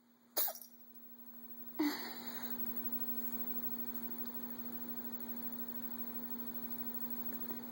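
A kitten sneezing twice, two short sharp sneezes about a second and a half apart, which the owner takes for a sign of a cold. A steady electrical hum runs underneath.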